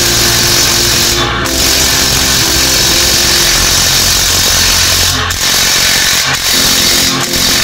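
Mailtank cordless impact wrench hammering hard and continuously on a wheel-hub nut torqued to about 300 Nm, letting off for an instant about a second in and again about five seconds in. It is straining without breaking the nut loose.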